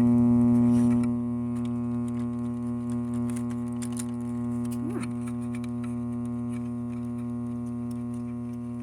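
Vintage alarm clock radio's speaker giving out a steady low electrical hum with many overtones, the kind of mains hum that sets the speaker cone moving. The hum drops in level about a second in, and faint ticks run under it.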